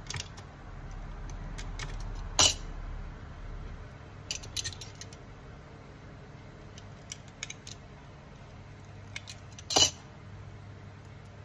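Small clicks and rattles of a crimping tool and network cable being handled, with two sharp snaps about seven seconds apart.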